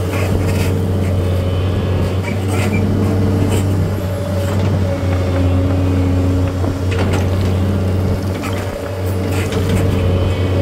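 Engine of a machine levelling stone, running steadily, its pitch shifting a little, with scattered knocks and clanks over it.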